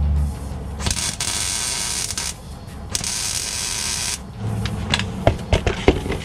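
MIG welder laying two short beads of about a second and a half each onto a steel exhaust pipe, a steady crackling hiss that stops abruptly each time. A few sharp clicks and knocks follow as the gear is handled.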